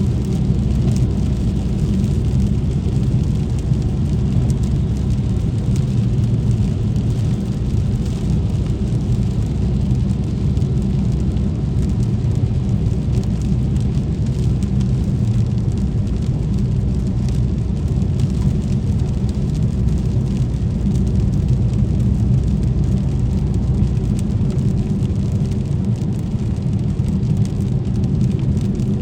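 A car moving along a rain-wet street: a steady low rumble of engine and tyres with rain noise over it.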